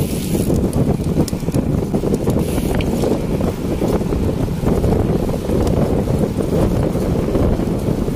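Wind buffeting the microphone of a camera on a moving bicycle: a steady, loud low rumble.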